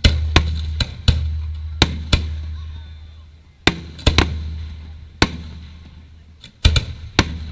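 Aerial fireworks shells bursting overhead: about a dozen sharp booms in quick, uneven succession, some in close pairs, each trailing off into a fading rumble.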